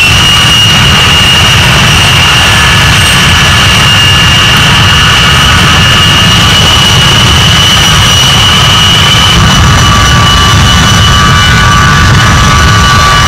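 Two A-10 Thunderbolt II jets' General Electric TF34 turbofans running loud, with a steady high-pitched whine over a heavy rumble as the pair rolls along the runway. About nine seconds in, the high whine drops away and lower whines take over.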